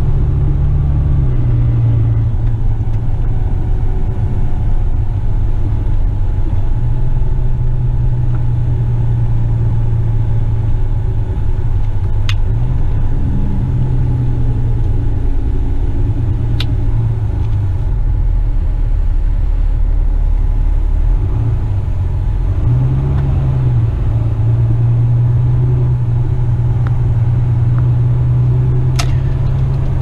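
Western Star dump truck's diesel engine heard from inside the cab while driving, a steady low drone whose pitch steps up and down several times as the engine speed changes. Two short clicks sound near the middle.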